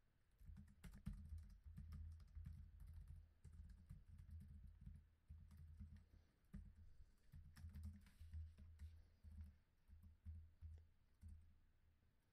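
Faint typing on a computer keyboard: quick irregular keystroke clicks with dull thuds, in short runs with brief pauses.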